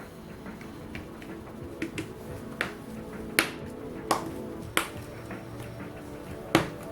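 Sharp clicks and taps of tools and small parts being handled while a OnePlus 2 smartphone is taken apart, about seven of them at uneven intervals, the loudest about three and a half seconds in and near the end, over steady background music.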